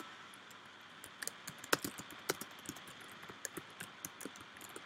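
Computer keyboard typing: irregular key clicks, a few of them louder than the rest.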